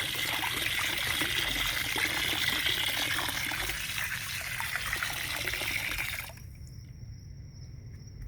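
Water running in a steady trickle, as if poured or flowing into a dish, that stops abruptly about six seconds in. A faint, steady, high-pitched tone remains after it.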